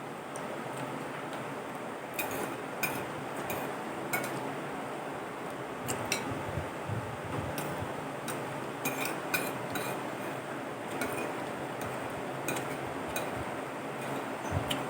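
Cutlery clinking and scraping against a plate while eating, in short sharp clicks scattered irregularly, over a steady background hiss.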